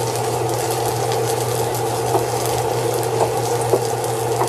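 Meat sizzling steadily in a cast iron pan over a constant low hum, with a few light knife taps on a cutting board as pork is sliced.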